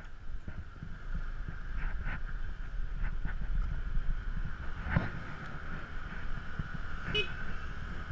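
Motor scooter running along a road, its engine and road rumble mixed with wind on the microphone. A sharp knock about five seconds in and a short high tone just after seven seconds.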